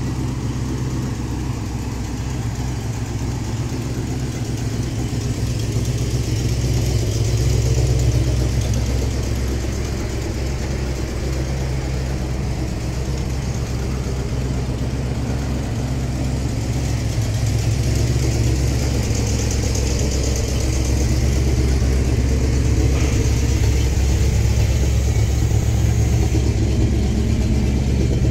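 1987 Ford F250 4x4 pickup's engine idling steadily, a low even hum.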